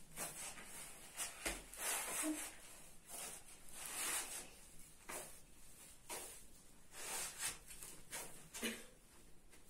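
Hands kneading bread dough in a plastic bowl, each push and fold making a short, soft rasping sound, irregularly about twice a second.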